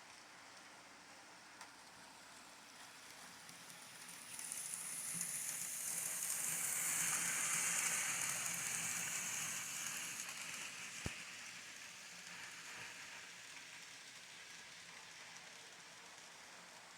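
N scale model train running past, a hiss of wheels and motor that swells and then fades away, with one sharp click about eleven seconds in.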